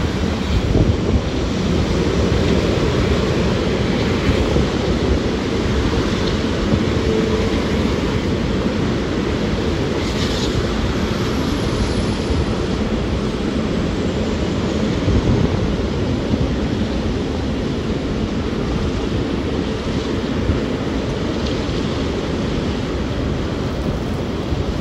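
Wind buffeting the microphone: a loud, steady rushing rumble with a short crackle about ten seconds in.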